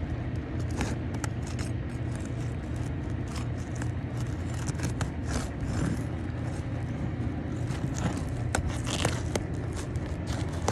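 Irregular scraping and sharp crackling clicks of a tool being worked between asphalt roof shingles to break the adhesive seal of the shingle above from the one being removed, over a steady low hum.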